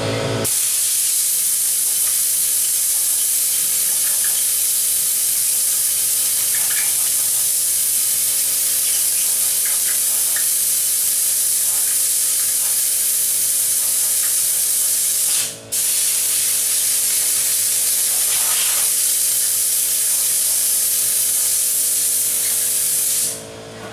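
Compressed-air blow gun hissing steadily as it is aimed along the hood's panel gaps and edges, with one brief break about two-thirds of the way through as the trigger is let go, then cut off just before the end.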